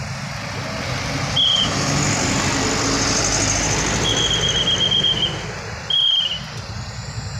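Slow road traffic of cars and motorcycles passing close by, engine and tyre noise swelling for a few seconds as vehicles go past. Three short high-pitched squeals cut through it: one about a second and a half in, a longer one from about four to five seconds, and a brief one about six seconds in.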